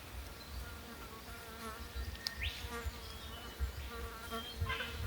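Flies buzzing close by, the hum coming and going as they move around; a brief rising chirp sounds about two seconds in.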